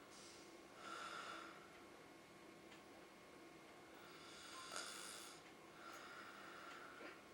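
A man snoring in his sleep: three snores about a second long each, the loudest a little past the middle, with quiet breathing between.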